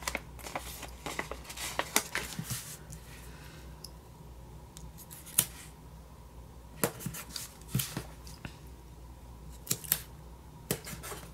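Paper handling: planner stickers being peeled off their backing sheet and pressed onto a paper planner page, in irregular short crackles and clicks. They are busiest in the first few seconds and again in the second half.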